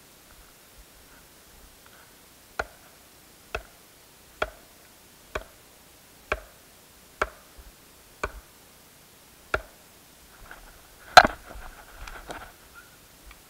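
Knocking on the trunk of a large hollow tree to flush a marten from its den hole: eight sharp knocks about a second apart, then a louder single crack a little later, with rustling around it.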